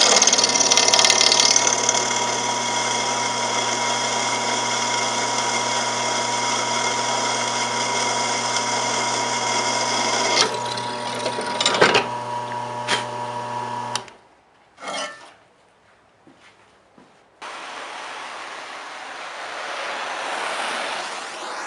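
An electric power tool's motor running steadily at speed, then switched off about two-thirds of the way in. A few sharp knocks follow, then a steady rushing roar starts suddenly near the end.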